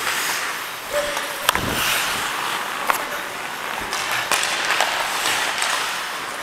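Ice hockey skate blades scraping and gliding on the ice in a steady hiss, with a few sharp clicks of sticks and puck.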